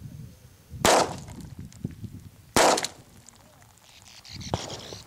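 .22 LR semi-automatic pistol fired twice, about a second and three-quarters apart. A softer knock with a brief rustle follows near the end.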